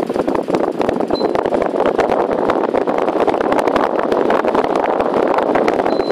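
LED-lit pedestal electric fan running at speed: a loud, steady noise with rapid irregular ticking. A short high beep sounds about a second in and again near the end.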